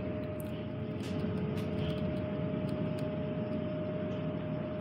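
A ship's engines and machinery running: a steady low rumble with a constant two-note hum over it and a few faint ticks.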